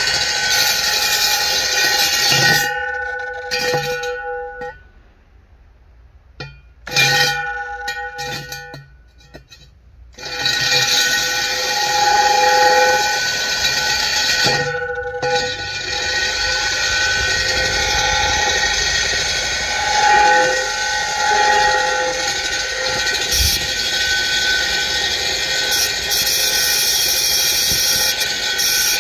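Parkside PKBM 1800 A1 1800-watt core drill running a large diamond core bit into a concrete block, held freehand: a steady motor whine with a few clear pitched tones. The motor stops about five seconds in, restarts in short bursts, stops again, and runs steadily from about ten seconds on.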